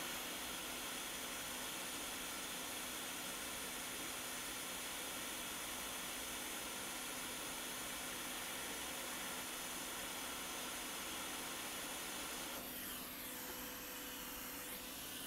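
Quick 861DW hot air rework station blowing a steady hiss while a replacement fuse is reflowed onto a laptop logic board. The hiss eases off about twelve seconds in.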